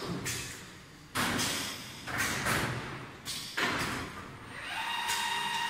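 Automatic tricot cutting and welding machine at work: several sudden hissing bursts, with a steady high whine coming in near the end.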